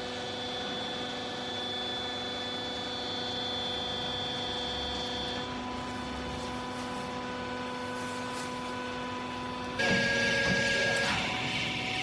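Vertical hydraulic baler's electric pump motor running with a steady hum, stepping up louder with a higher whine about ten seconds in.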